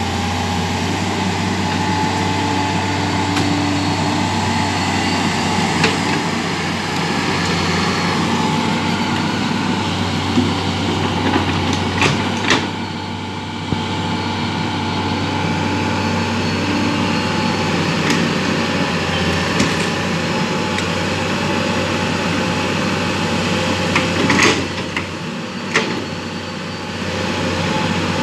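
Komatsu crawler excavator's diesel engine running steadily while the machine digs a ditch, with a few sharp knocks around the middle and again near the end.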